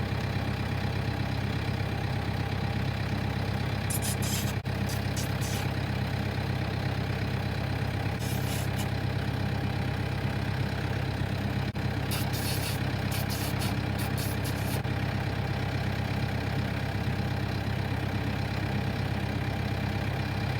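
A vehicle engine idling steadily with a deep, even hum, and a few brief bursts of hiss over it.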